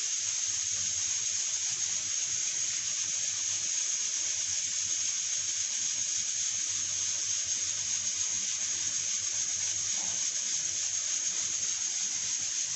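Aluminium pressure cooker on a gas burner hissing steadily as steam escapes at its vent weight, a high even hiss that does not change.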